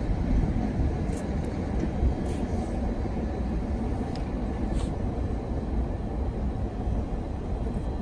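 Steady low outdoor rumble of city traffic and wind on the microphone, with a few faint light clicks scattered through it.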